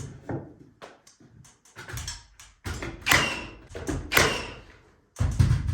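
A run of light knocks and taps from handwork on the wall boards, with two sharper knocks about three and four seconds in and a heavier low thump near the end.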